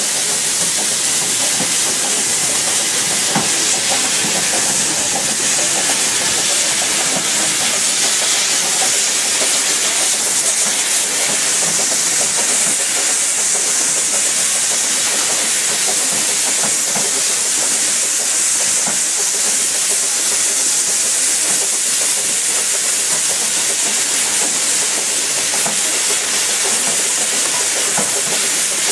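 Narrow-gauge steam train running, heard from an open-sided carriage as a steady, even hiss with no clear beat.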